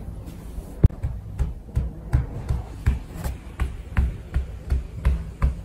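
A steady low hum with regular low thumps, about three a second, and one sharp click about a second in.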